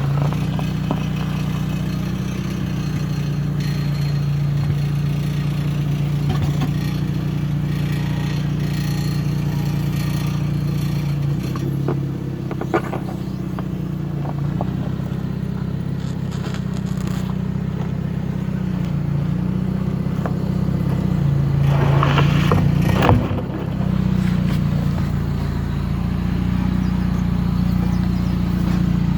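Lowered Honda Civic's four-cylinder engine running at low revs, its pitch dipping and rising as it is throttled over rough ground. Scattered scrapes and clatters, with a louder burst of scraping and crunching about three quarters of the way through.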